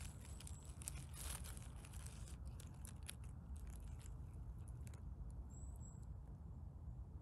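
Dry conifer needles and forest litter crackling faintly as a hand works a young bay bolete loose from the forest floor and lifts it. The crackles come in quick irregular clusters, thickest in the first few seconds.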